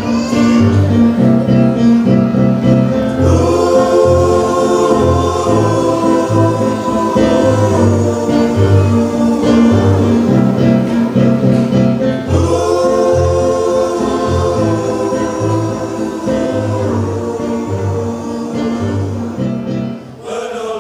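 A choir singing a gospel song in harmony over an instrumental accompaniment with a steady pulsing bass beat; the music dies away near the end.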